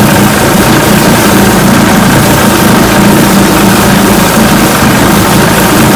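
1980 Chrysler 45 hp two-stroke outboard motor running steadily, after a tuneup and new ignition coils cured its poor running.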